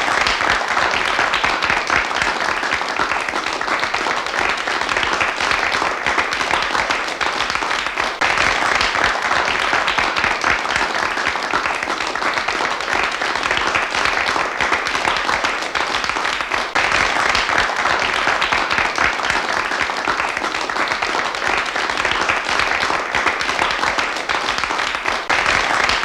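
Applause from a group of about 50 people, a dense, steady patter of many hands clapping at once.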